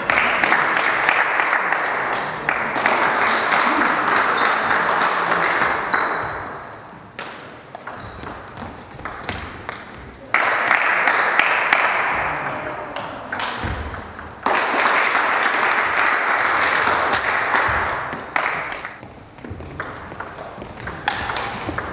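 Table tennis ball clicking sharply off bats and table during rallies. Three times, a sudden spell of spectator noise, crowd clapping and voices, breaks out after a point and lasts a few seconds.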